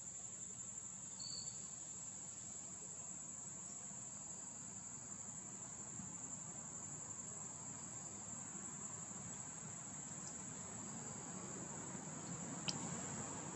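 Steady high-pitched drone of insects shrilling in the background, unbroken throughout, with a single sharp tick near the end.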